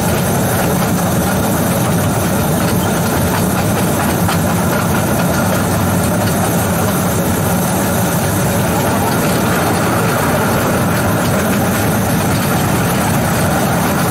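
Two-foot-gauge electric locomotive running along the track, heard from its cab: a steady, unbroken running noise of motors and wheels on rail.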